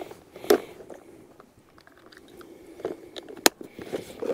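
Clear plastic compartment tackle box being handled, with plastic clicks and light knocks of its lid and contents; several sharp clicks, the loudest about three and a half seconds in.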